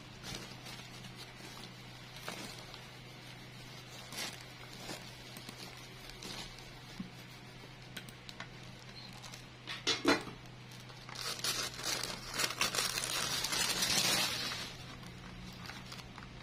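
Thin plastic sheeting crinkling and rustling as it is handled and peeled off a freshly ironed petal. The crinkling is densest and loudest for a few seconds past the middle, with scattered small taps before it and a low steady hum underneath.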